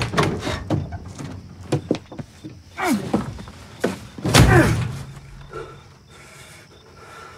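A vehicle door being handled and slammed shut with a heavy thunk as a man climbs into the cab, with knocks and creaks before the slam.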